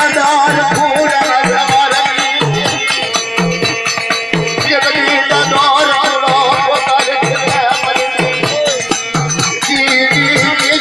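Music with a steady drum beat and a melody line that wavers in pitch.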